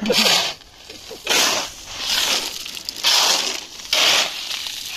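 Shovels digging into a gravel pile and tipping loads into a steel wheelbarrow: a gritty scrape and rattle about once a second.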